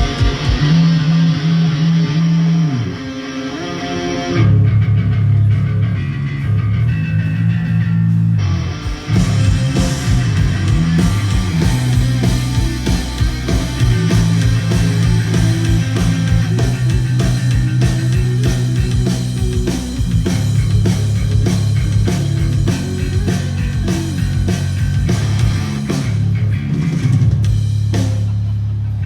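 Hard rock band playing live at a sound check: distorted electric guitar and bass guitar on a heavy riff, with the full drum kit joining about nine seconds in. The band stops near the end.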